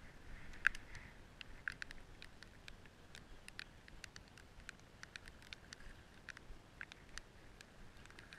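Light rain: scattered, irregular ticks of raindrops striking close to the microphone, a few a second, over a faint hiss.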